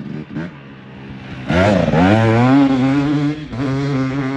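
A motor vehicle engine revving. It comes in loudly about a second and a half in, dips and climbs in pitch, then holds a steady pitch with a short break near the end.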